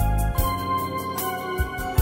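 Background music: sustained keyboard chords over a bass line, with a regular drum beat.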